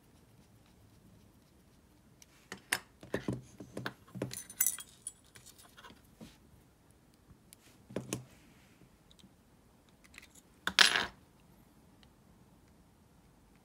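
Metallic clicks and clatters from a Shimano Calcutta Conquest 400 baitcasting reel and a small screwdriver being handled and set down on a wooden workbench. They come in a cluster from about two to five seconds in, again around eight seconds, and loudest as a short clatter near eleven seconds.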